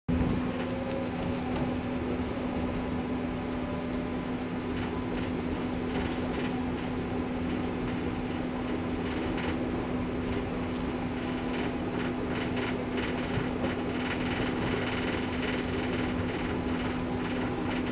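T8K-503 tram running: a steady hum with a strong constant low tone, over which come scattered short clicks and rattles.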